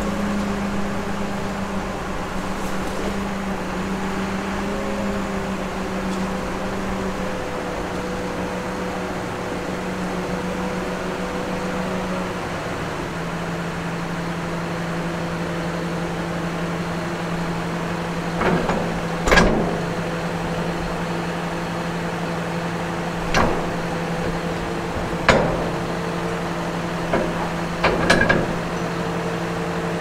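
Tractor engine running steadily at low revs, stepping down in pitch twice in the first half. Several sharp knocks come in the second half.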